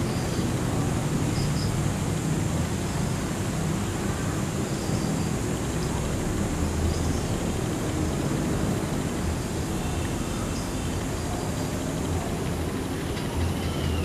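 Steady low rumble under a constant hiss, with a few faint short high peeps.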